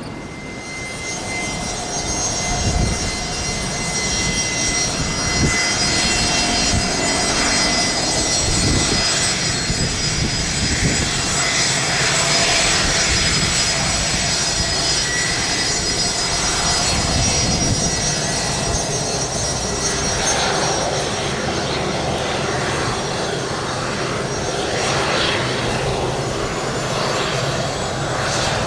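Airliner engines running close by: a rumble with several steady high whining tones. It swells over the first few seconds and then holds loud.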